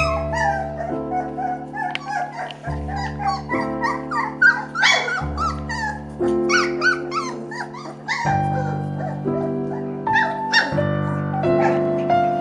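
Young puppies yipping and whimpering in many short, high cries, busiest for the first eight seconds and sparser after, over background music.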